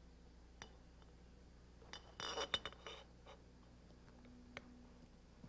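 Faint metallic clinks and taps, clustered about two to three seconds in, with a few single clicks elsewhere: a metal tube being handled and set into the vise of an end mill tube notcher whose cutter is not yet running.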